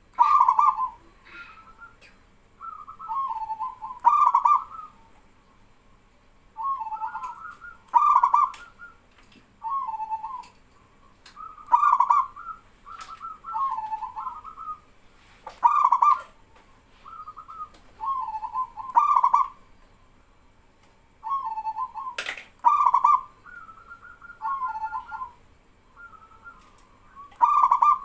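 Male zebra doves (perkutut) cooing back and forth. A loud stuttering coo phrase comes about every four seconds, with softer answering coos between them. A single sharp click sounds about two-thirds of the way through.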